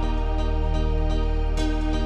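Background music: a calm new-age track with sustained chords over a steady bass, changing chord near the start.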